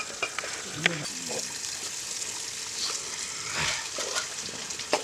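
Camp ambience: a steady hiss with scattered sharp clicks and crackles, one louder crackling patch past the middle, and brief faint voices.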